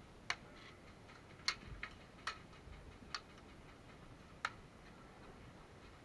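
Airsoft gunfire: about six sharp single clicks at irregular intervals, the loudest about a second and a half in.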